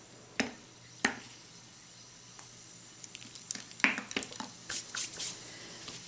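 Two sharp clicks as effervescent vitamin C tablets drop into a plastic bottle of water, then from about three seconds in a crackling fizz with scattered ticks as the tablets dissolve and foam.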